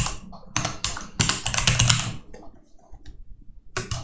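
Typing on a computer keyboard in rapid bursts of key clicks, thinning out and pausing for about a second near the end before starting again.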